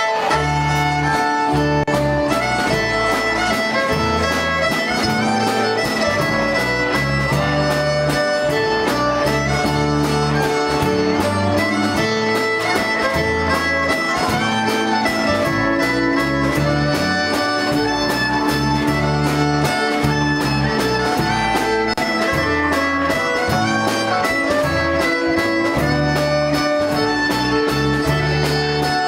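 Live country band playing an instrumental, the fiddle leading over strummed acoustic guitars and a steel guitar, with a walking bass line and a steady beat.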